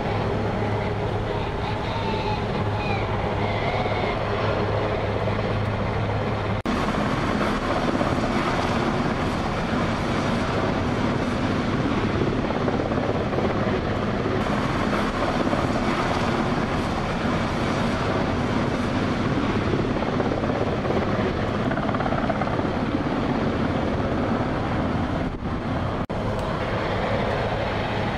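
Helicopter hovering low over the sea, a steady dense rotor and engine noise. The sound changes abruptly about six seconds in and again near the end.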